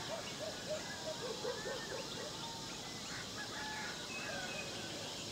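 Morning bird calls. A chicken gives a run of short low calls in the first two seconds, while other birds call and whistle throughout over a steady background hiss.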